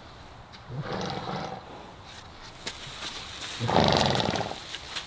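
A horse vocalising twice, each a rough, low call of about a second, the second one louder.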